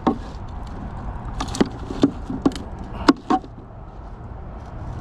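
A handful of sharp knocks and clicks, about six in the first three and a half seconds, over a steady low background rumble.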